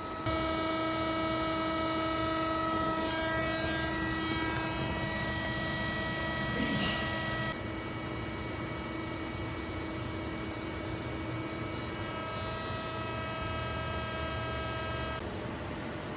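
1997 Makino GF-6 vertical machining center running, a steady machine whine made of several held tones that starts just after the beginning. About seven and a half seconds in the highest part cuts off and the sound drops slightly, and the tones change again near the end.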